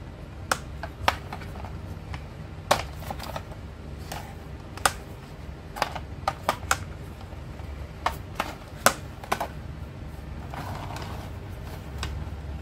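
Hard plastic clicks and clacks, irregular and sharp, as a toy dump truck is handled and its dump bed tipped on its hinge, over a low steady hum.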